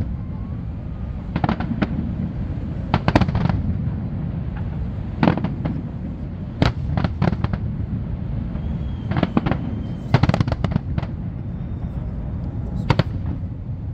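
Fireworks going off: clusters of sharp bangs and crackles every second or two, over a steady low rumble.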